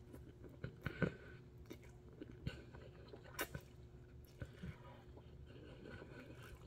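A person chewing a mouthful of noodles close to the microphone, with scattered wet mouth clicks and smacks and one sharper click about three and a half seconds in.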